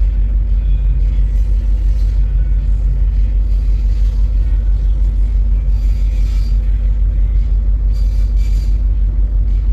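Steady low rumble with a constant hum from a container ship's engine and machinery.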